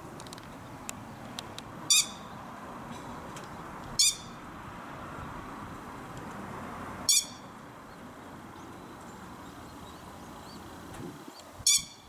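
Grey-headed lapwing calling: four short, sharp calls a few seconds apart, over a steady background hiss.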